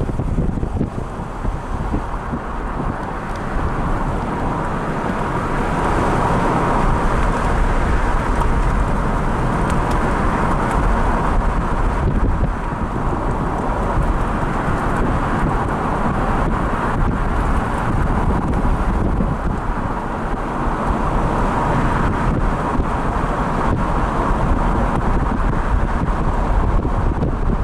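Steady noise of a car driving: road and engine rumble with wind.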